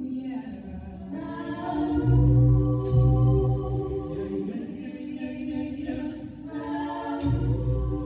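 High school a cappella group singing in close harmony, with no instruments, several voices holding chords. A deep vocal bass line comes in strongly twice, about two seconds in and again near the end.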